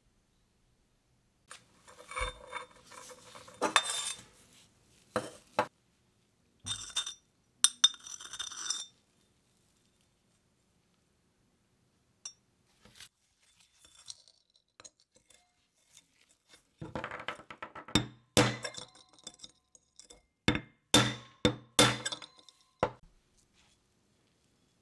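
Rusty sheet-steel oil lamp parts clinking and scraping as they are handled and a metal screwdriver is worked against them to pry them apart. The sound comes in two irregular clusters of sharp clinks, with a quiet stretch between them.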